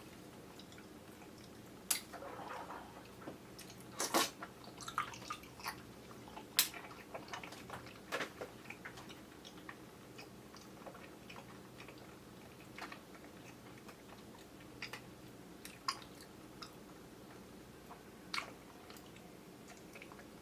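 Chewing of chewy kyoho grape jelly: short, irregular wet clicks and squishes, busiest in the first half and sparser later. The sound comes through a camera's built-in microphone, so it is thin and a little distant.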